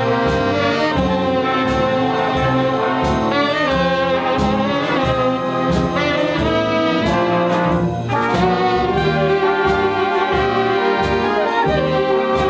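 A dance band's horn section of trumpets, trombones and saxophones playing a jazz-style tune together, with a drum keeping a steady beat.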